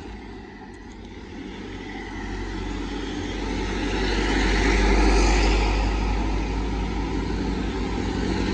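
A truck passing on the road close by, its engine and tyre noise building to a peak about five seconds in and staying loud.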